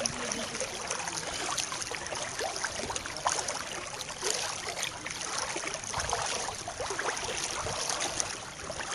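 Waist-deep floodwater sloshing and splashing steadily around people wading through it, with small irregular splashes throughout.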